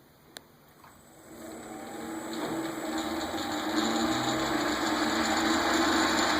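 A click, then a 1941 South Bend 9-inch Model A lathe, driven by its original Westinghouse half-horsepower three-phase motor through a pedestal countershaft, starts and spins up over about two seconds to a steady running whir. The motor is fed from a VFD set to 90 Hz.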